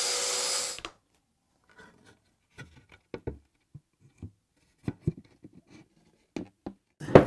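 Domino-style floating-tenon joiner running with a steady motor whine as it plunges a mortise into a walnut mitre edge, cutting off just under a second in. Then come scattered light clicks and wooden knocks as the mitered walnut panels with their tenons are handled and fitted together, the loudest knock near the end.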